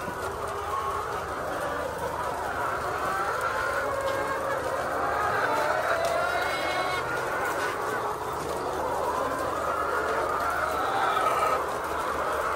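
A flock of layer chickens clucking and calling together, many overlapping voices at once.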